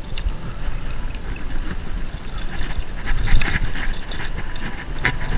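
Wind rumbling on the microphone with light water splashing, and a few sharp clicks toward the end as pliers work the needlefish lure's hooks free of a hooked bluefish.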